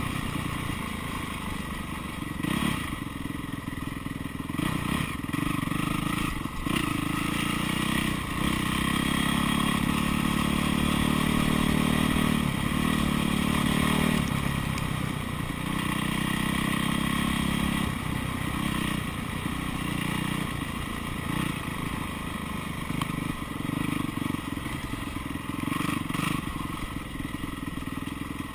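2009 Yamaha YZ450F's single-cylinder four-stroke engine running while ridden. Its revs rise and fall as the throttle is worked, with brief drops every few seconds.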